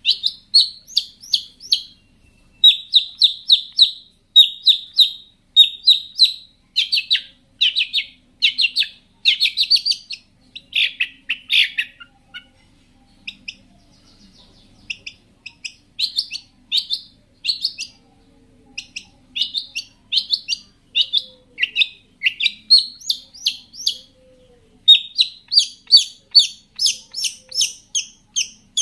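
Long-tailed shrike (cendet) singing in fast runs of short, high, repeated notes, full of mimicked phrases. There is a pause of a few seconds about halfway through, then the song picks up again, quicker and denser near the end.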